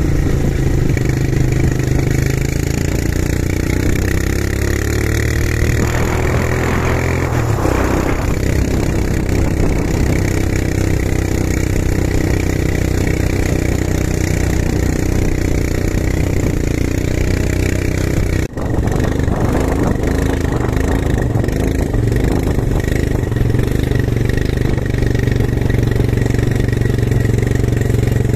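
ATV quad bike engines running steadily while riding over sand, the engine pitch rising and falling a few seconds in as the throttle changes. A very brief drop-out about two-thirds of the way through.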